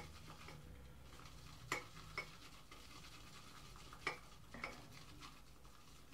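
Boar shaving brush being worked in a shaving bowl to build lather: a faint swishing with a few sharp clinks of the brush against the bowl, irregularly spaced.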